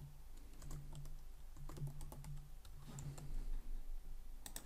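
Typing on a computer keyboard: scattered key clicks, with a quick cluster of keystrokes near the end.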